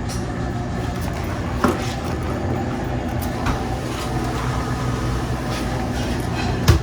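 Commercial refrigeration unit's compressor running with a steady low hum, with a light knock about two seconds in and a louder sharp knock near the end. The unit is short cycling, which the technician suspects comes from a low refrigerant charge.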